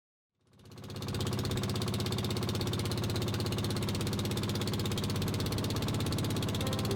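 Small engine running steadily with a rapid, even knocking beat, fading in about half a second in.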